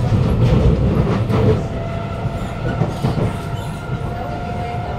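Kawasaki Nippon Sharyo C751B metro train running, heard inside the carriage: a low rumble of wheels on track, heavier for the first second and a half, then settling. A steady motor tone comes in about two seconds in.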